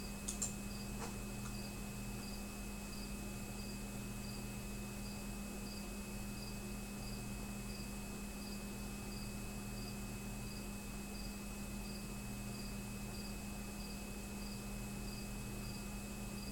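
Steady low electrical hum and hiss with a faint high-pitched chirp repeating evenly about twice a second; a couple of light clicks just after the start.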